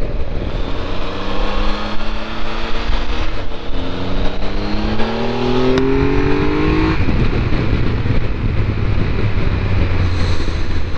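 Triumph Tiger 1200's three-cylinder engine pulling up through the revs, rising in pitch, with a gear change about three and a half seconds in, then settling to a steady low running note about seven seconds in. Heavy wind noise from the lowered windscreen runs under it throughout.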